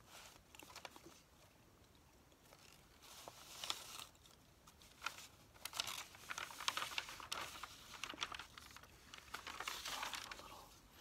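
Newsprint grocery ad circulars rustling and crinkling as their pages are handled and turned, in several irregular bursts that are louder and busier in the second half.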